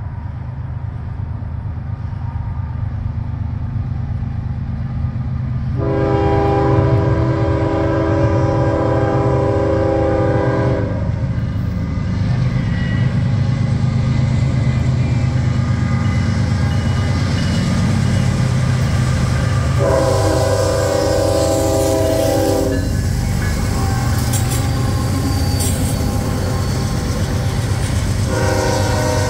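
Norfolk Southern freight train's diesel locomotive horn sounds two long blasts, about six seconds in and again about twenty seconds in, and starts a third near the end. Under the horn the locomotives' diesel engines rumble, growing louder as the train approaches and passes, with some rail noise from the wheels.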